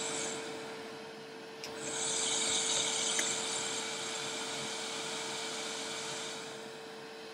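Pillar drill running with a steady motor hum. From about two seconds in, a high hissing cutting noise comes in and holds for some four seconds as the twist bit is fed down into a metal shaft, then fades.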